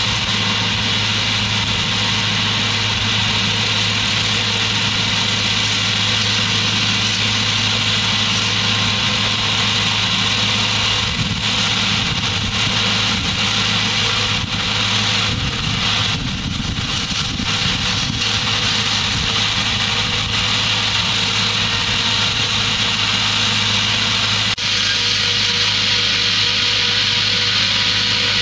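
Tractor engine running steadily while powering a tractor-mounted disc hedger pruning citrus trees, with a constant hum and a dense hiss over it. The sound wavers for a stretch in the middle and changes abruptly near the end.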